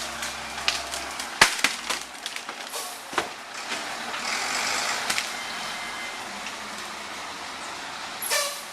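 Heavy truck running nearby, with scattered sharp knocks and clicks, the loudest about one and a half seconds in, and a louder hiss for about a second around four to five seconds in.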